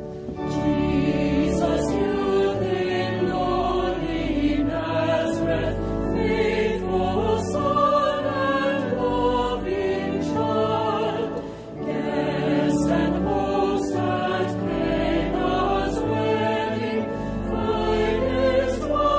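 Choir singing a hymn, with a short break between phrases a little past halfway.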